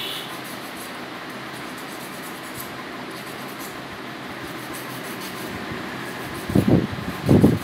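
Steady whir of a fan or air-conditioning unit in a small room; near the end a voice breaks in with a few short, louder sounds.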